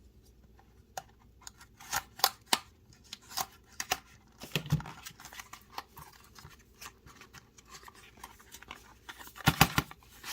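A small product box and its paper inserts being opened and handled by hand: scattered clicks, taps and rustles, busiest near the end.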